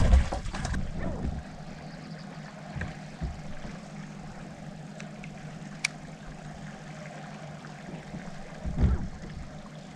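A loud thump at the outset, then a steady low electric hum from the bass boat's equipment, with a sharp click about six seconds in and a softer thump near the end.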